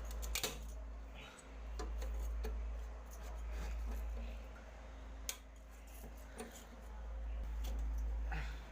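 Scattered metallic clicks and clinks of tools and metal parts being handled while a window air conditioner is taken apart, the sharpest just after the start and about five seconds in. Underneath runs a deep rumble that swells and fades several times.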